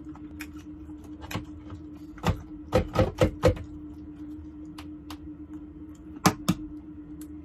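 A boiled fertilized chicken egg (maodan) being tapped against a hard surface to crack its shell: a quick run of five sharp knocks, then two more near the end.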